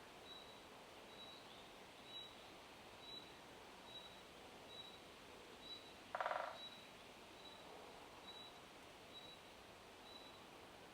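A small woodland bird repeating one short, high note a little more often than once a second, over faint wind hiss in the leaves. About six seconds in comes a single, brief, louder call.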